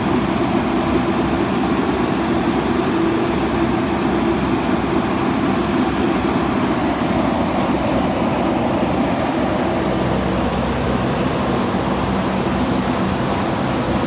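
Diesel engine of a JCB backhoe loader running steadily, an even engine hum with no break.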